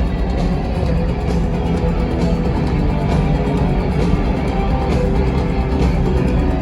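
Rock band playing live, guitar to the fore over bass and drums, in an instrumental passage with no singing.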